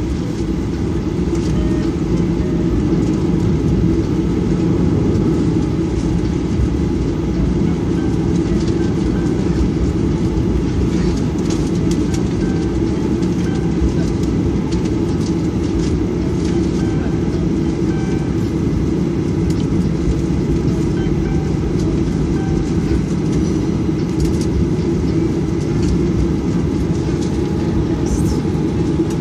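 Jet airliner's engines running steadily, with a low rumble and hum, heard from inside the passenger cabin while the plane taxis on the ground.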